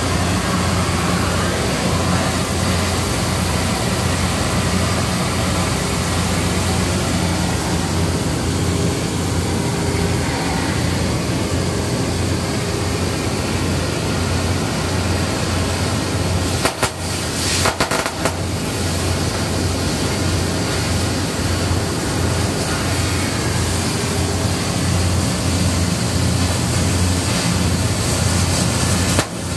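Oxy-fuel cutting torch hissing as it cuts through steel well casing, over a steady drone of rig machinery. A few brief knocks come about halfway through.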